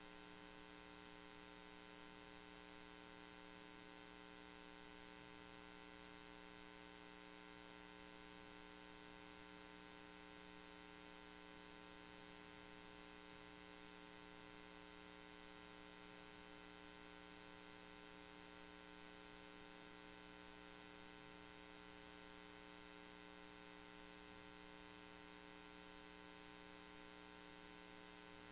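Near silence, apart from a faint steady electrical mains hum with its many overtones and a light hiss.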